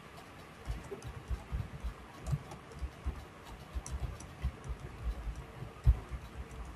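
Typing on a computer keyboard: irregular dull keystroke thumps, several a second, with a few faint clicks; the loudest thump comes near the end.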